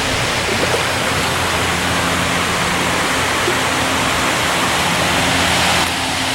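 River water rushing steadily over rocks, a loud, even rush that eases slightly near the end.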